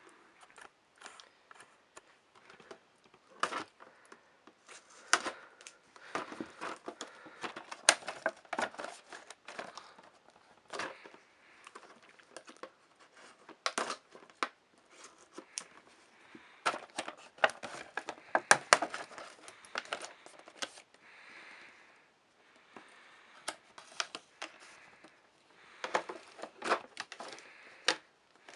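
Clear plastic and cardboard toy packaging being cut and worked open with scissors: irregular crinkling and crackling, with many sharp clicks and snaps as the plastic lid is pried loose.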